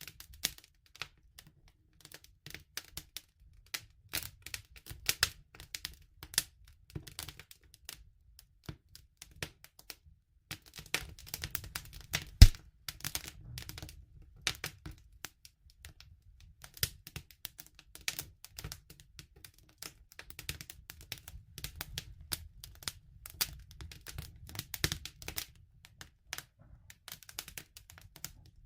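Campfire crackling: irregular snaps and pops of burning wood over a low, steady rumble, with one louder pop about halfway through.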